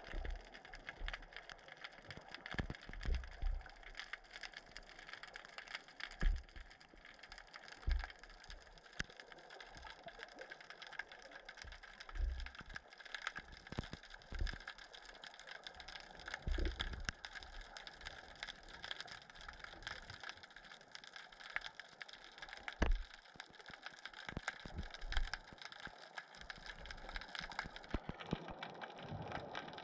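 Underwater sound heard through a submerged camera's housing: a steady hiss crackling with many faint clicks, broken by irregular low thumps every second or two.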